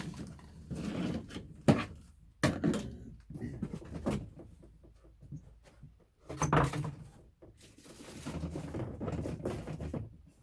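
Rummaging through a cardboard box of packed parts: rustling packaging with a few sharp knocks as plastic pieces are handled and set down.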